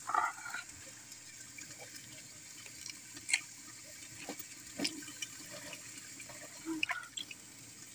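Faint water sloshing and dripping in a basin as fish are cleaned by hand and their gills pulled out with a knife, with a few short soft clicks.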